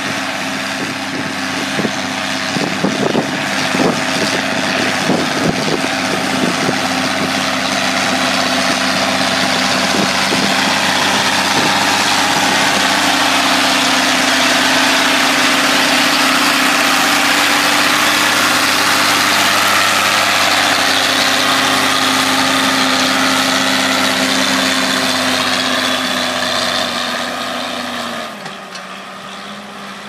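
Ford 8210 tractor's six-cylinder diesel engine running steadily while pulling a plough, growing louder as it comes close and passes, then dropping suddenly to a lower, quieter note near the end.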